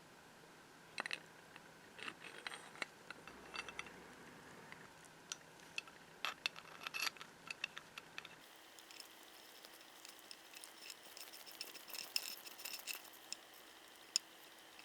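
Light clicks and metallic clinks of small parts being handled during work on a vintage pinking machine, in scattered taps at first. After a cut about eight and a half seconds in, the ticking comes faster and busier.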